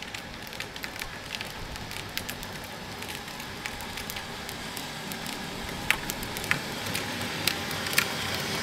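Plastic wheels of a child's battery-powered ride-on toy car rolling over asphalt: a steady crackling rustle scattered with small sharp clicks, slowly growing louder as the car comes closer.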